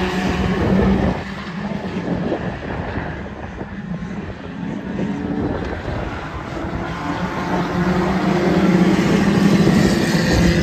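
Several junior hot rod race cars running round an oval track, their engines droning together. The sound dips about a second in, then builds and is loudest near the end as the pack comes past close by.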